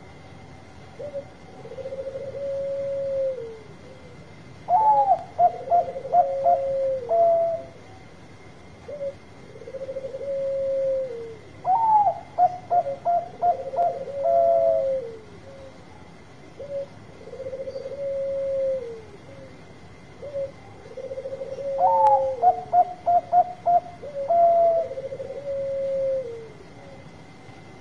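Bangkok-line zebra dove (perkutut) cooing: long, level coos that drop in pitch at the end, repeated, and three times broken by a rapid stuttering run of short, higher notes, about seven to ten seconds apart.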